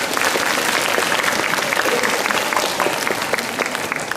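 Audience applauding, many hands clapping together, thinning a little near the end.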